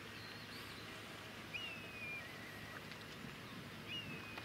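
Low steady rumble of the passing cruise ship Guntû, with several thin whistled bird calls over it, each a quick rise then a held, slightly falling note.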